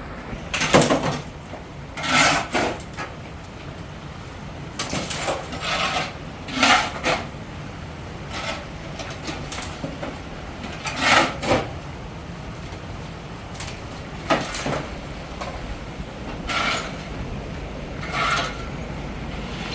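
Irregular rasping scrapes, about a dozen, each lasting under a second, over a steady low background rumble.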